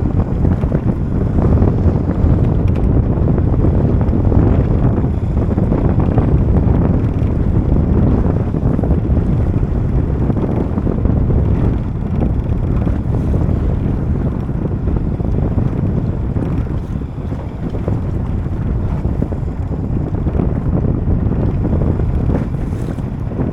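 Wind buffeting the microphone out on the open sea aboard a small boat: a loud, dense low rumble that swells and eases throughout, dipping a little about two-thirds of the way through.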